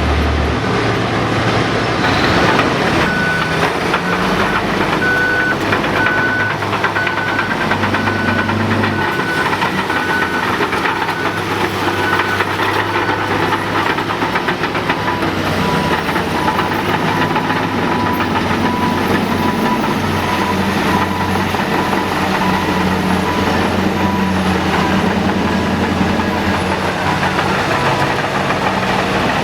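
Heavy diesel earthmoving machines, a Cat 5130B excavator and Cat 777 haul trucks, running under load, their engine note rising and falling. A backup alarm beeps about once a second for roughly ten seconds, then a lower-pitched backup alarm beeps steadily through the second half.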